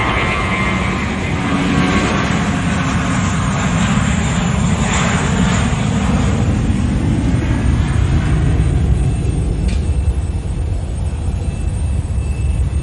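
Airbus A320's jet engines at takeoff power as the airliner rolls down the runway and lifts off: a loud, steady rumble with a hissing roar over it.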